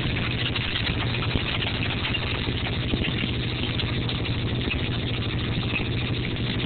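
John Deere two-cylinder ('Johnny Popper') tractor engine running steadily with a fast, even pulse while pulling hay rakes.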